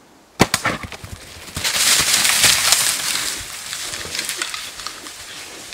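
A bow shot at a black bear: one sharp crack, then the bear crashing off through brush and dry leaves, with a run of snaps and rustling that fades over a few seconds.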